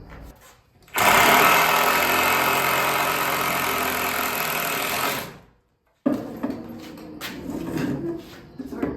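Handheld circular saw running and cutting through 2x8 lumber for about four seconds, starting suddenly and then winding down. Quieter knocks and handling of the wood follow.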